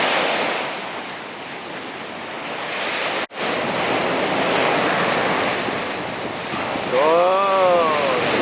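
Sea waves breaking and washing up a beach, with wind buffeting the microphone; the sound cuts out for an instant about three seconds in. Near the end a single drawn-out call rises and falls over the surf.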